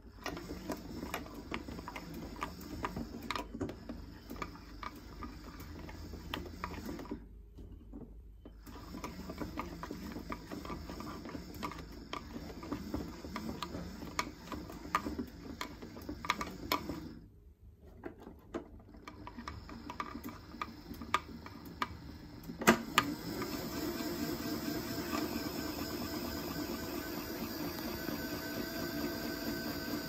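Small electric motor of a 1970s Casdon toy washing machine turning the drum of wet laundry, with clicks and rattles. It stops twice for a second or so, then about 23 seconds in runs up into a louder, steadier spin.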